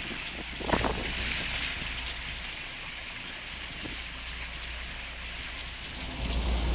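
Fishing boat at sea: a steady low engine hum under wind buffeting the microphone and water rushing past the hull, with a brief sharper sound about a second in.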